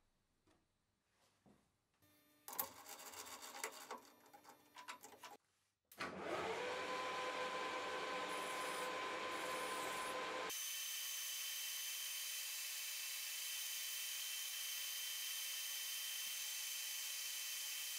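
Light clatter of metal parts being handled, then a metal lathe starting about six seconds in, its motor whine rising and settling into a steady hum as a round part of the screw press spins and is filed. After an abrupt change about halfway through, a steady hiss of abrasive cloth sanding the spinning part with the lathe running.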